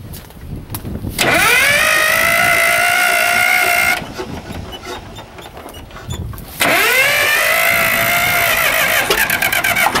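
Starter cranking the CAT D7 bulldozer's engine in two tries: a whine that rises and then holds steady for about three seconds, stops, and starts again about two and a half seconds later. Near the end, rapid even knocks come in as the diesel begins to fire.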